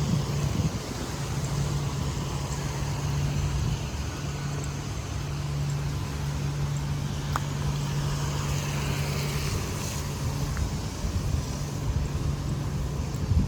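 Street traffic noise, with a motor vehicle's engine running close by as a steady low hum for most of the stretch.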